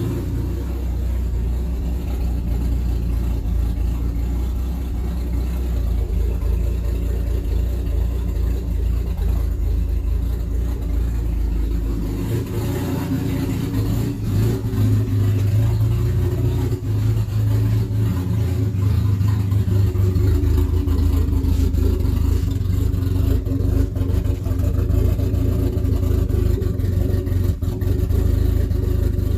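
Nissan RB-series turbocharged straight-six running in a Mercedes 190E. About twelve seconds in its pitch steps up and stays higher as the revs rise.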